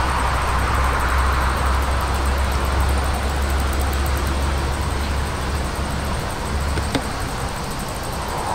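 Steady outdoor background noise with a low rumble, which drops away about seven seconds in.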